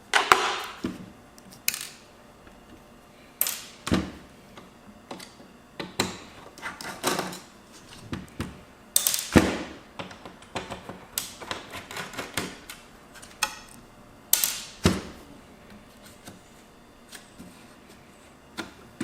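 Irregular clicks, taps and knocks of small plastic and metal parts being handled and pried apart during a laptop teardown, a sharp one every second or few, with quiet gaps between.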